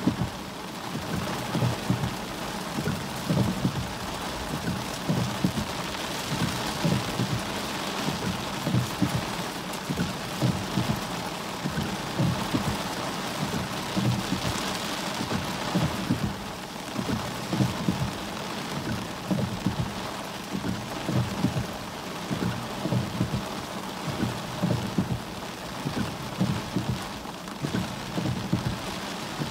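Heavy rain hitting a car's roof and windshield, heard from inside the cabin: a steady hiss over a dense, irregular patter of low thuds from large drops.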